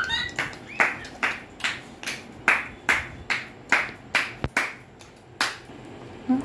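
Hands clapping in a steady rhythm, about two claps a second, stopping about five and a half seconds in.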